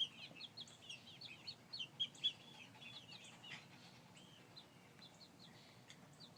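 Young chickens peeping: many short, high chirps in quick succession, thinning out after about three and a half seconds.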